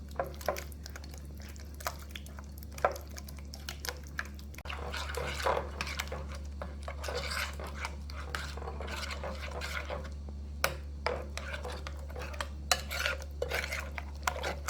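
A utensil stirring and scraping a wet seasoning mix of spices, oil, lemon juice and butter in a container, with frequent clinks against its sides, busier from about a third of the way in, over a steady low hum.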